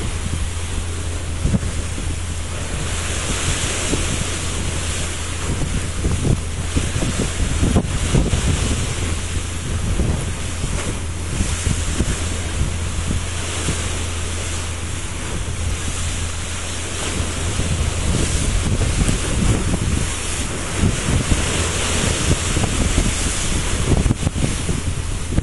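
Wind buffeting the microphone over the wash of the sea, with a steady low hum underneath.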